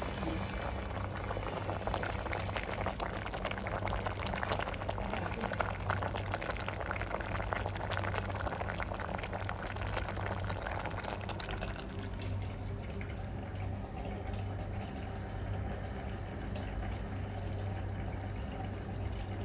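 A pot of mung bean stew (ginisang mongo) boiling: a dense crackle of bubbles popping, easing off and getting quieter about twelve seconds in, over a steady low hum.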